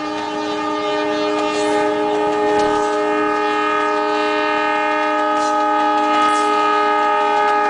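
Meter-gauge diesel locomotive's horn blowing one long unbroken blast, several pitches sounding together, growing louder as the train approaches.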